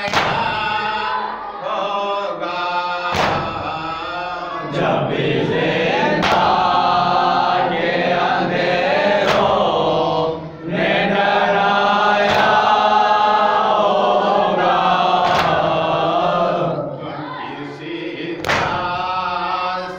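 Group of men chanting a noha, a Shia lament, in chorus, with a sharp slap of hands striking chests about every three seconds: matam keeping time with the lament.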